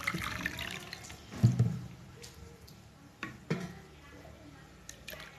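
Water trickling and dripping in a plastic jug. There is a thump about a second and a half in and a couple of sharp knocks a little later as the jug is handled.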